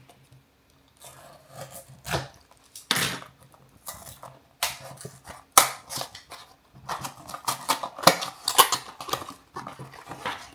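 Small cardboard prize box being forced open by hand: a series of scrapes, rips and clicks, sparse at first and busier in the last few seconds.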